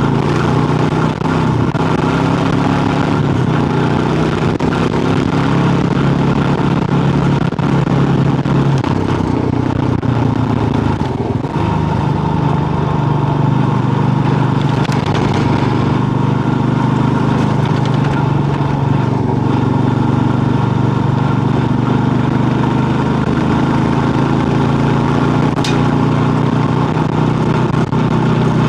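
Kawasaki KLR650's single-cylinder four-stroke engine running steadily at road speed, with wind rush and tyre noise from the gravel road. A brief sharp click sounds near the end.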